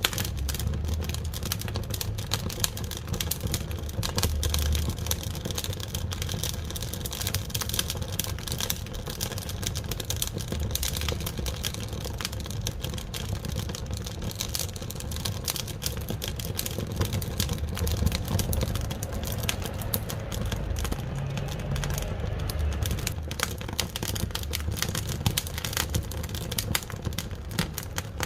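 Wood fire burning in a wood-fired cookstove: dense, irregular crackling and popping over a steady low rumble.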